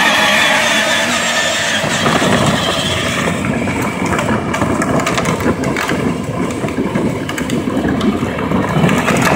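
Battery-powered ride-on toy Jeep driving: its electric drive motors and gearboxes whine at a steady pitch. From about two seconds in, its hard plastic wheels rumble and rattle on asphalt.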